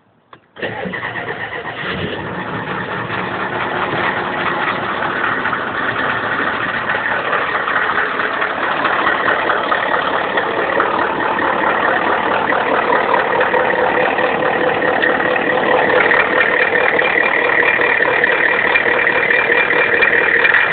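IDI diesel engine cold-starting: a click, a brief crank, then it catches about half a second in and idles steadily, growing louder. Near the end it picks up into its cold-start high idle.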